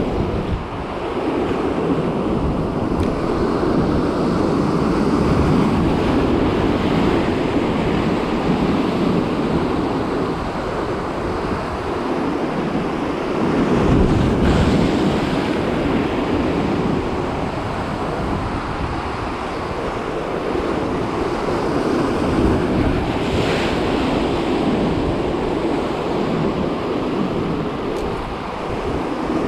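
Sea surf washing in on a rocky shore, with wind buffeting the microphone; the noise swells and eases as the waves come in.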